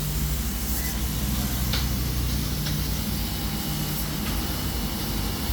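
Steady hum and even hiss of a CO2 laser cutting machine's running support equipment (water chiller, air compressor and air blower), with a low droning tone and a couple of faint ticks.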